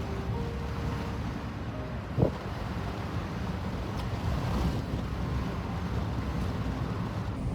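Steady low rumble of wind buffeting the microphone, with one short sharp knock about two seconds in.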